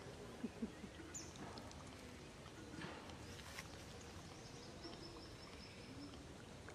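Faint outdoor ambience: a steady background hiss with two short low sounds about half a second in, and a few faint high chirps and ticks.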